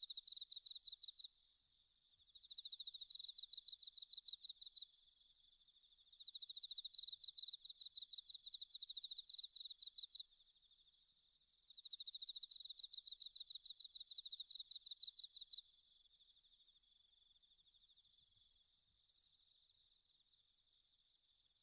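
Insect chirping, cricket-like: rapid high-pitched pulsed trills that come in loud runs of a few seconds, alternating with quieter stretches of trilling.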